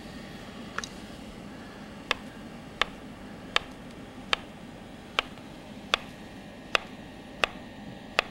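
Chef's knife slicing a peeled banana on a wooden cutting board: a sharp tap each time the blade goes through and meets the board, in an even rhythm of about one slice every three-quarters of a second.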